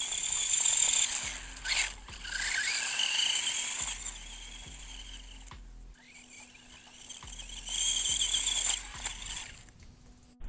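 Electric motor of a 1/18-scale Haiboxing Ratchet RC buggy whining as it speeds up, the pitch rising, over tyre hiss. It swells three times: near the start, around three seconds in, and about eight seconds in.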